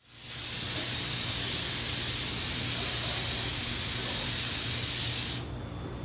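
Etching primer being sprayed onto bare metal, a steady hiss that stops abruptly about five and a half seconds in.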